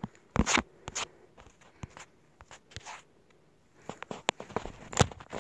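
Handling noise of a phone being moved and turned around close to its microphone: brief rubbing scrapes and a few sharp clicks, spread unevenly with quiet gaps between them.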